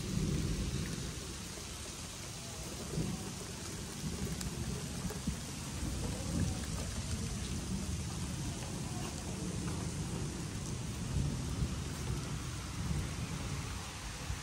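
Rain falling steadily in a storm, with a low rumble that swells and fades throughout.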